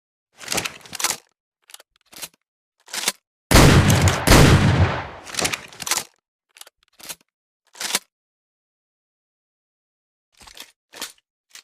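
Double-barrel shotgun fired twice in quick succession, the two blasts less than a second apart, each with a long fading tail. Before and after the shots come short clicks and clacks of the gun being handled.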